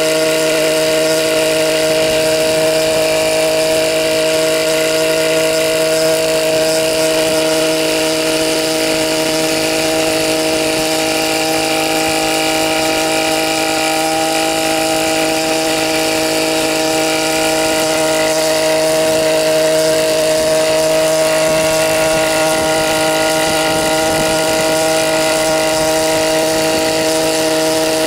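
Helipse HE 300 unmanned helicopter in flight, its 121.6 cc two-stroke engine and rotors running at a steady, even pitch with no change in speed.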